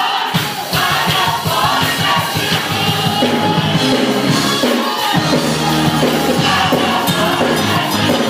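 Gospel choir singing with a live band, drums hitting fast in the first few seconds before the bass and voices move into longer held notes.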